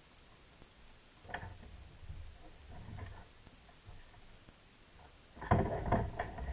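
Handling noises on a kayak: a single sharp click a little over a second in and a few soft bumps, then a burst of louder knocks and rattles near the end as a caught perch and fishing gear are handled.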